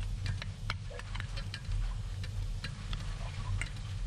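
Wooden chopsticks stirring raw chicken gizzards in a stainless steel bowl, knocking against the metal in irregular sharp clicks, several a second, over a steady low hum.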